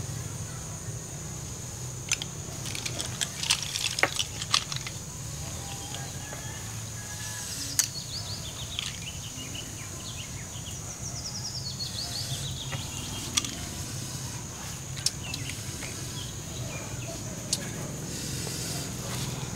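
Steady high insect drone over a low steady rumble. A cluster of sharp clicks comes a few seconds in, with single clicks later. Near the middle there is a falling series of chirps.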